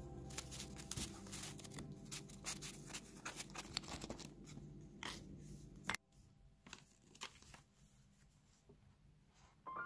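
Paper rustling and crinkling as loose sheets and an envelope are handled, with a sharp snap near six seconds in, after which it drops to a few faint light taps.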